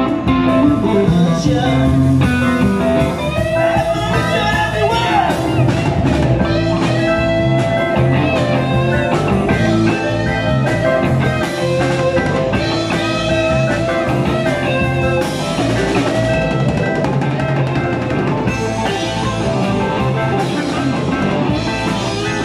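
Live band playing blues-rock on electric guitars, bass guitar, drum kit and keyboard, with the lead guitar bending notes over a steady beat.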